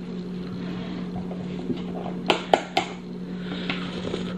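Eating hot soup from a wooden spoon: a few quick clicks of spoon and mouth about two and a half seconds in, over a steady low hum.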